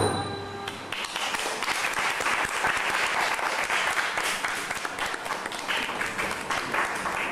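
The last note of the dance music rings out and fades in the first second. Then an audience applauds steadily.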